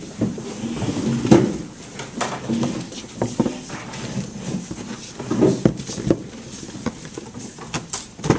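A group of students talking over one another without clear words, with scattered knocks and clatter as they move about the room.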